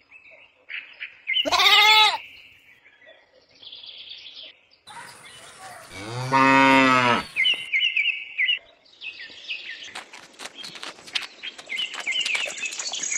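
Cattle mooing twice: a short, higher moo about a second and a half in and a long, deep moo about six seconds in, with birds chirping around them. Light clicks and rustles follow near the end.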